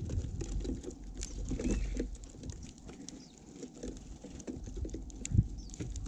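Birds feeding at a feeder close to the microphone: scattered sharp pecking and seed clicks, with rustling and low bumps. There is one faint short chirp, and a sharp knock near the end is the loudest sound.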